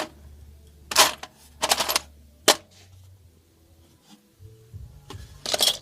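Tools and small hardware clattering and clinking as they are rummaged through and lifted out of a toolbox, in a few short bursts with a sharp click about two and a half seconds in.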